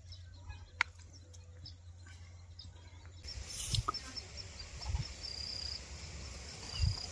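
Faint birds chirping in short calls, over a low steady rumble of wind on the microphone, with a sharp click early and a few dull low thumps in the second half.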